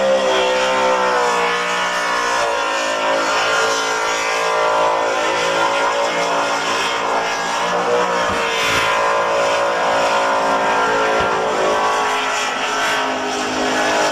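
Car engines held at high revs during burnouts, the pitch wavering up and down as the throttle is worked, over the hiss of spinning tyres.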